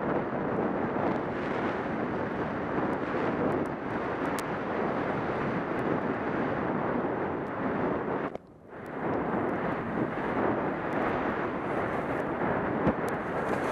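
Steady rush of wind over the microphone mixed with skis sliding over groomed snow on a downhill run, dropping away briefly about eight and a half seconds in.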